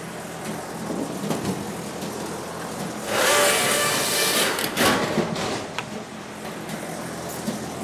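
Scheitfix firewood-cutting machine running steadily as wooden slabs are fed in, with a loud saw cut through the wood about three seconds in that lasts a second and a half, and a shorter burst just after.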